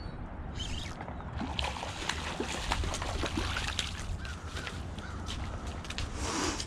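Water splashing and sloshing at the water's edge, thickening about a second and a half in, over a steady low rumble.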